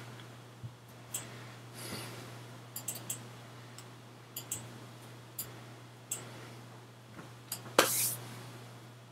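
Small clicks, taps and rustles of hands and clothing from a man signing at his desk, with a louder brush of the hands about eight seconds in, over a steady low hum.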